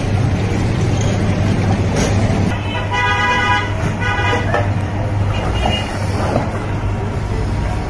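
Busy street traffic under a steady low hum, with a vehicle horn honking twice, about two and a half to four and a half seconds in.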